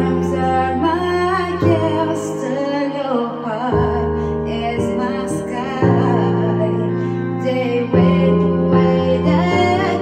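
A woman singing into a handheld microphone over backing music, the backing's held chords changing about every two seconds beneath her wavering vocal line.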